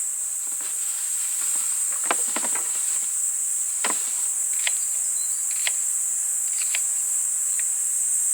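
Steady high-pitched drone of insects, with scattered short clicks and knocks over it, several close together about two seconds in.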